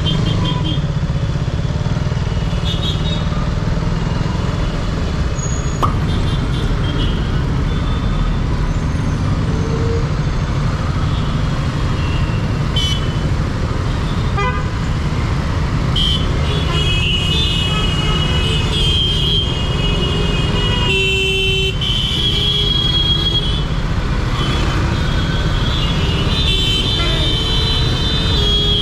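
A KTM Duke 200's single-cylinder engine running at low speed in dense city traffic, giving a steady low rumble. Many vehicle horns honk over it, a few near the start and then often, overlapping, through the second half.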